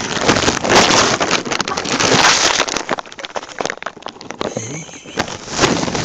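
Loud rustling and scraping right against the microphone, irregular and crackly, easing off for a moment about halfway through before picking up again.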